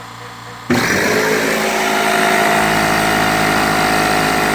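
An old air compressor switching on abruptly under a second in and running steadily, loud.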